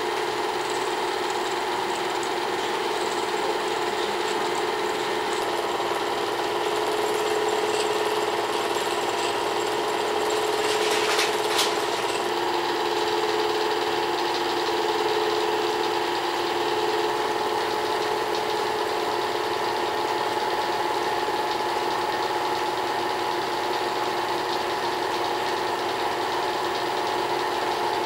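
Small-gauge home-movie film projector running: a steady mechanical motor hum with a brief scratchy burst about eleven seconds in.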